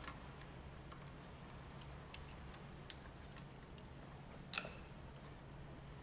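A few light clicks and small rattles from a wall switch and its wires being handled and worked on. The loudest click comes about four and a half seconds in, over a low steady hum.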